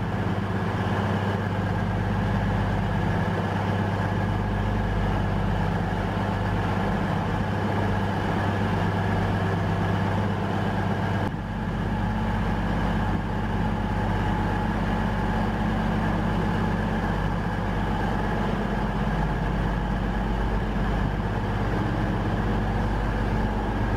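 Steady hum of an Avanti West Coast diesel train's underfloor engines idling while it stands at the platform, with a slight shift in the low tones about halfway through.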